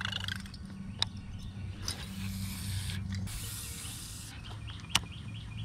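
Baitcasting fishing reel being worked by hand, its gears giving a steady mechanical whirr with a few sharp clicks. A brief hissing rush comes about three seconds in.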